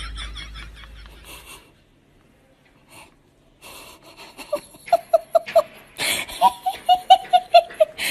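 A person laughing in quick runs of short, evenly spaced 'ha' sounds, two bouts starting about halfway through, after a couple of seconds of near silence.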